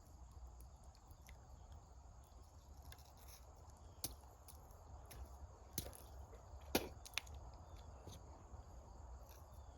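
Quiet outdoor background with a low rumble, broken by a few short, sharp clicks and taps, the loudest about two-thirds of the way in.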